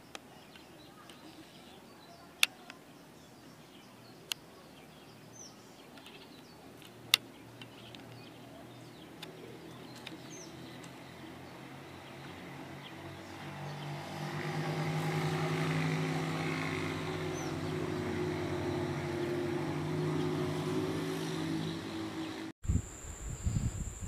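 Faint bird chirps and a few sharp clicks over a quiet outdoor background, then a low steady motor hum swells up about halfway through and is the loudest sound until it cuts off abruptly near the end. After the cut there is a high steady whine.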